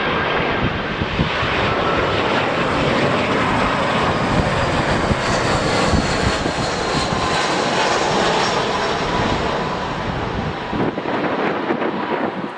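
Airliner engines running loud as the aircraft passes close by on a landing approach in strong wind. The noise swells to a peak around the middle, with a faint steady whine above it, then eases off near the end.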